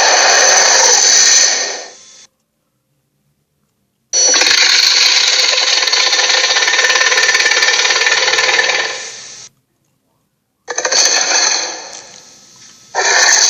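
Animated-film Sharptooth (Torvosaurus) roar sound effects played one after another. A loud, raspy-pitched cry cuts off about two seconds in. After a silence comes a longer one lasting about five seconds, then a shorter one fading out, and another begins near the end.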